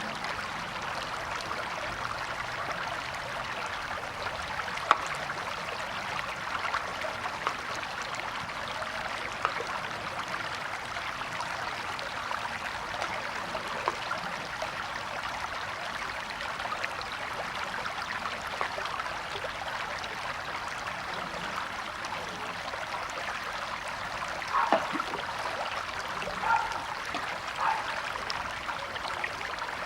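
Stream or small river flowing steadily over rocks, a continuous rushing babble with occasional brighter splashes and plinks, a few of them clustered near the end.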